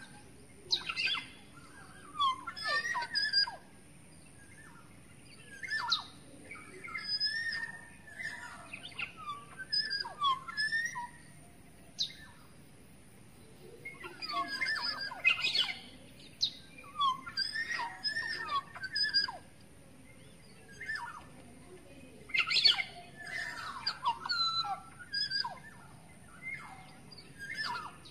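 Black-naped oriole (kepodang emas) calling: short phrases of gliding whistles mixed with rougher notes, coming in bursts every second or two with brief pauses between.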